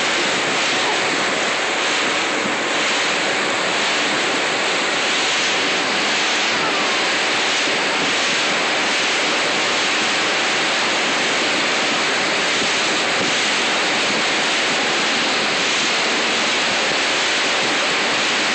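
Steady rushing of a speeding motorboat's churning wake, with wind on the microphone.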